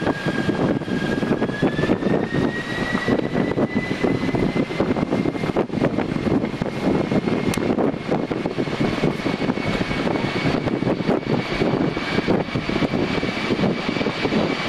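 Airbus A380's four Engine Alliance GP7200 turbofans running at taxi power: a steady, heavy roar with a thin jet whine that rises a little in pitch over the first two or three seconds and then holds steady.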